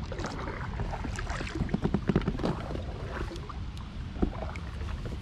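Rowing an inflatable boat: oars dipping and splashing, with irregular knocks, heaviest in the first few seconds, over a steady low rumble of wind on the microphone.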